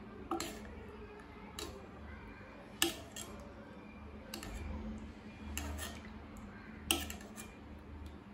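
A metal spoon tapping and clinking against the pot and the soaking gulab jamuns as syrup is spooned over them: a few sharp taps, the two loudest about three and seven seconds in.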